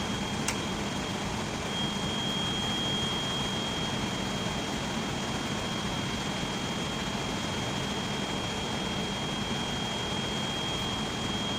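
Steady machinery hum and noise with a constant high-pitched whine, and a single sharp click about half a second in.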